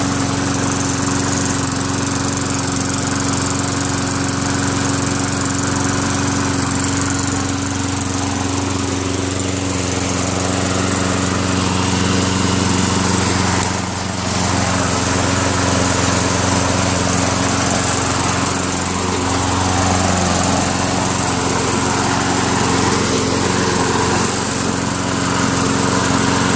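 Tecumseh 5.5 hp single-cylinder four-stroke lawn mower engine running steadily and evenly, purring, after a carburetor clean and a throttle spring adjustment, with a brief dip in loudness about halfway through.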